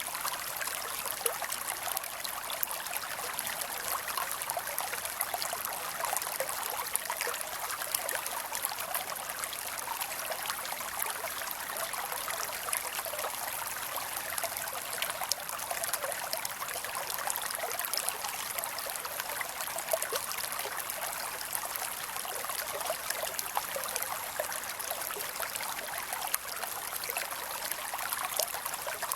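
Small creek flowing and trickling steadily, a bright, splashy water sound with fine crackling droplets and little low rumble.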